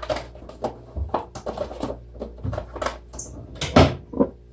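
Irregular clatter of small hard objects being handled: about a dozen uneven clicks and knocks, with a brief high squeak about three seconds in.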